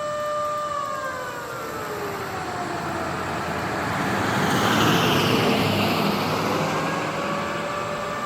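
Federal Signal Model 2 outdoor warning siren sounding a steady tone that sags in pitch about a second in and climbs back to its full pitch near the end. A passing vehicle's rushing noise swells in the middle, loudest about five seconds in.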